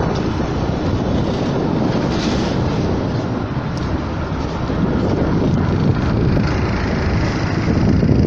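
Steady rushing noise of wind buffeting the microphone aboard a motor boat under way, with the boat's engine running underneath and choppy water around the hull.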